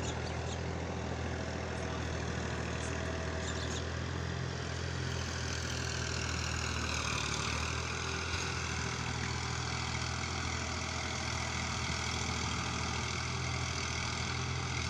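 A motor running steadily with a low, even, engine-like hum and a fainter higher whine that dips slightly about six seconds in.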